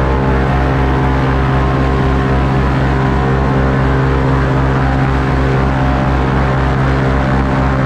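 Airboat engine and air propeller running at a steady cruising speed, with an even low pulsing.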